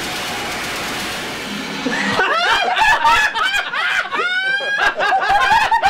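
A steady hiss, then from about two seconds in a burst of loud, high-pitched, cackling laughter from several people in quick repeated bursts.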